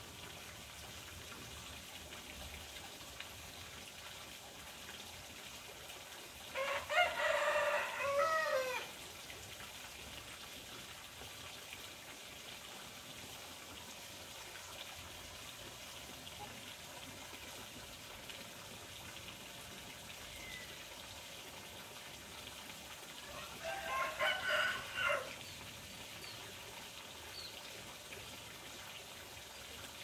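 A rooster crowing twice, each crow about two seconds long, the second one some seventeen seconds after the first. Between the crows a steady sound of running water goes on underneath.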